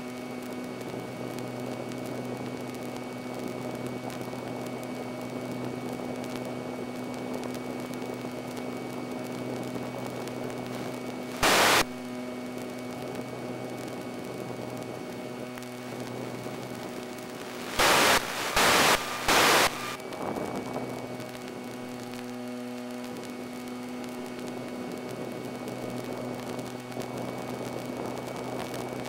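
Slow Stick RC plane's electric motor and propeller heard on board at a steady speed: a steady low hum under a hiss of radio static. Four loud bursts of static cut in, one about a third of the way through and three in quick succession about two-thirds through.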